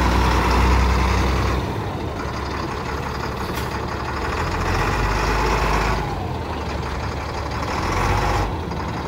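A 1993 Chevrolet Kodiak dump truck's engine idling steadily, its low hum swelling and fading a few times.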